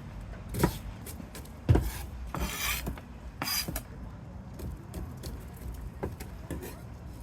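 Knife knocking on a wooden cutting board a few times, the loudest knock about two seconds in, followed by two short scrapes, as onion is chopped and scraped across the board.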